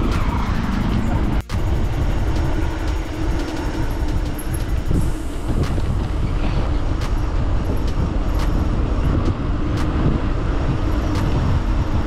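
Steady rumble of wind on the microphone and tyre noise from a mountain bike on the move, with a brief dropout about a second and a half in.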